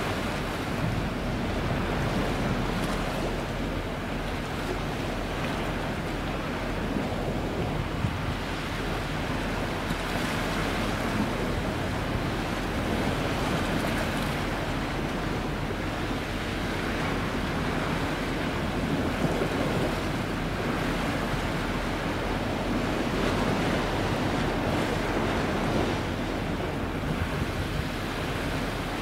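Steady rush of wind and sea, with wind buffeting the microphone.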